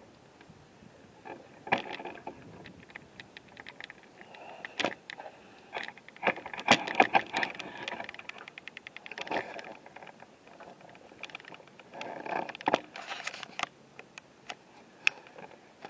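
Handling noise from a camera being moved and set up again: an irregular run of clicks, knocks, scrapes and short rattles, with the busiest rattling about six to eight seconds in.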